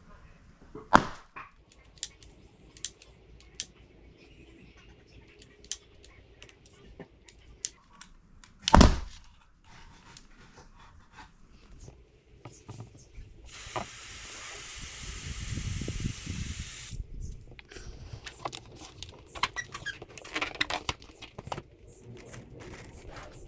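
Two sharp bangs of gas-filled balloons going off as they are lit, one about a second in and a louder, deeper one near nine seconds. Later a steady hiss lasting about three and a half seconds as gas from a spray can is fed into a balloon, with small clicks and rubbing of balloons being handled.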